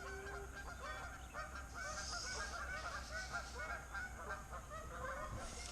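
A flock of geese honking excitedly, many short calls overlapping without a break.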